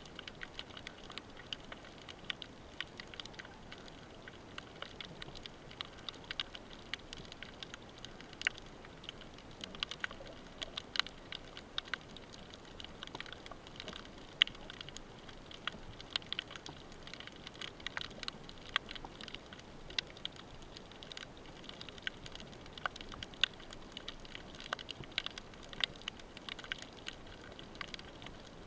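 Underwater crackling heard on a rocky reef: a dense, irregular patter of small clicks over a faint hiss, with a few sharper clicks standing out.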